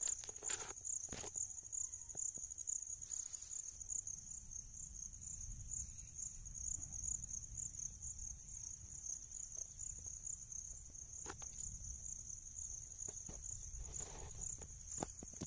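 Insects trilling steadily, a high-pitched pulsing chirr that runs on without a break. A few brief rustles of plants brushing past come near the start and again near the end.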